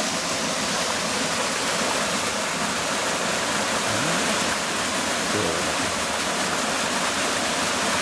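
Small waterfall pouring into a rocky plunge pool: a steady, even rush of falling and splashing water.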